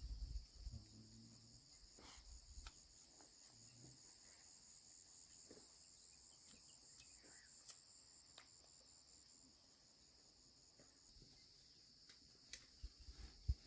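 Faint crickets chirping: a steady high trill with a second, pulsing chirp above it that stops about two-thirds of the way through. A few soft low thumps come near the start and again near the end.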